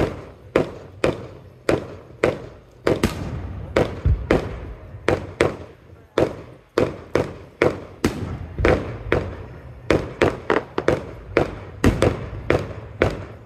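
Aerial fireworks going off in a rapid string of sharp bangs, about two or three a second, each with a short echoing tail.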